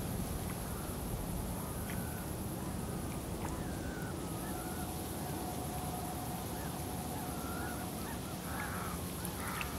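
Experimental ambient track: a rumbling, hissing noise bed with thin wavering, call-like glides drifting over it, and a steady tone that holds for a few seconds midway.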